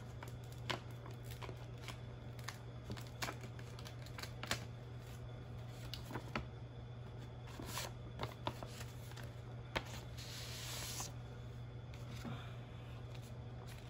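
Paper being handled as a greeting card is opened: scattered small clicks and rustles, with a brief hiss of paper sliding or tearing about ten seconds in. A steady low hum runs underneath.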